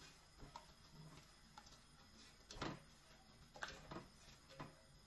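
Plastic slotted spatula scraping and knocking against a stainless steel pot while stirring, a soft stroke about once a second.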